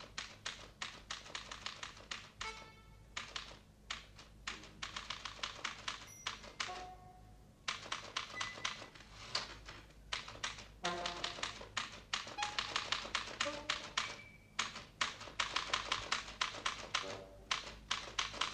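Manual typewriter typing fast, with key clacks in rapid runs broken by short pauses. Scattered short musical notes sound among the clacks.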